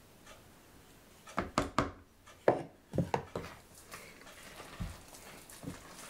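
Wooden spoon stirring flour into a moist bread-dumpling mixture in a bowl: soft rubbing and squishing, with a cluster of sharp knocks of the spoon against the bowl from about one to three and a half seconds in and one more near the end.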